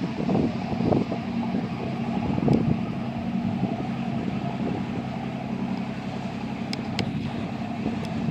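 Small inshore fishing boat's inboard diesel engine running steadily as it motors past, a constant low hum. Wind buffets the microphone in gusts during the first few seconds.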